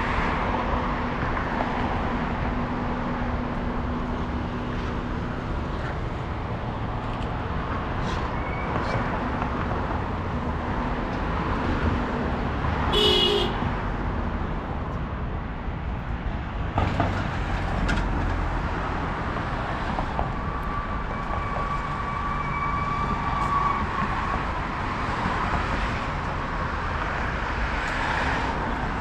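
City road traffic: a steady wash of passing cars and engines, with a short car-horn beep about halfway through.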